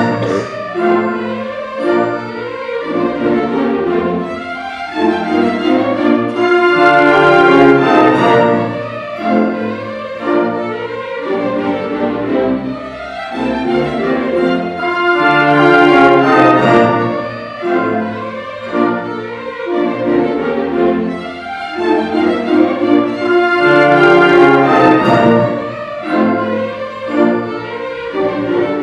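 Full orchestra playing a waltz, with bowed violins and cellos carrying the tune over a regular pulse of low chords; the music swells and falls back every few seconds.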